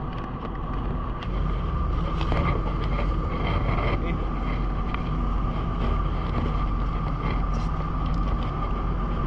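Steady low drone of a ship underway, with a constant thin whine above it and wind on the microphone; a few faint handling clicks.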